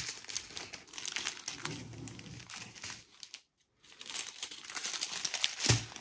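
Small plastic packets of diamond painting drills crinkling as they are handled and shuffled. The sound drops out for about half a second past the middle, and there is a thump near the end.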